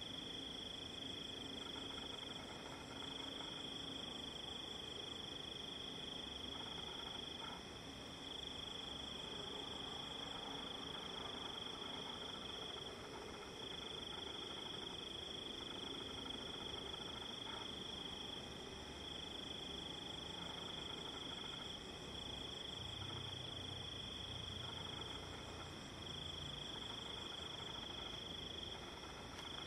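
Crickets trilling in one steady high-pitched chirr, broken by short pauses every few seconds.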